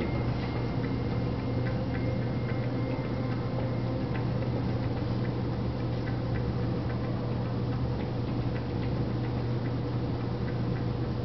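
A steady low hum with faint, irregular ticks over it.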